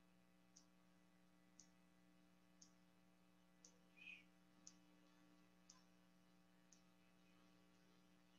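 Near silence: faint, evenly spaced ticks about once a second over a steady low hum.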